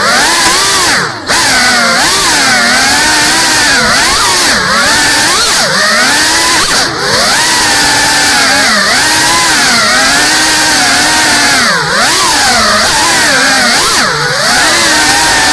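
GEPRC Cinelog 35 cinewhoop FPV drone's motors and propellers whining, the pitch rising and falling constantly with the throttle. There are brief drops in pitch and level about a second in and again a few times later, around 7, 12 and 14 seconds.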